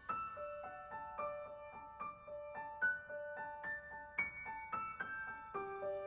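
Background music: a gentle piano melody of single notes, a new note every few tenths of a second.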